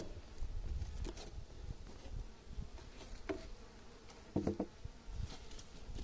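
Honeybees buzzing around an opened beehive, a few flying close by with short buzzes about three and four and a half seconds in, over low handling and wind rumble.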